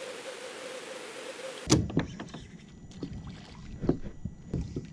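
Steady hiss with a faint hum from an underwater fishing camera's microphone, which cuts off about a second and a half in. Then a few knocks and bumps against a plastic kayak's hull, the loudest about two seconds in and near the end.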